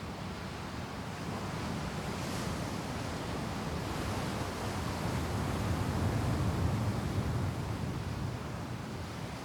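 Ocean surf: waves washing and breaking on the shore, a steady rush that swells to a peak about two thirds of the way through and then eases, with some wind on the microphone.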